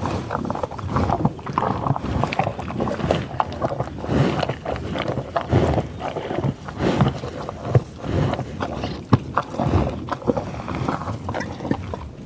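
American bison grunting at close range, with irregular low grunts again and again and rustling and crackling of tall prairie grass throughout.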